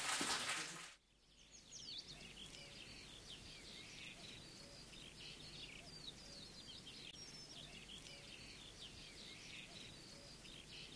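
Frying in a pan, cut off about a second in, then faint birdsong: many small birds chirping in quick, overlapping calls over a low steady hum.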